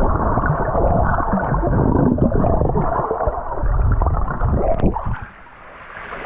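Muffled gurgling and bubbling of water heard through an action camera held under the water. The sound drops away about five seconds in.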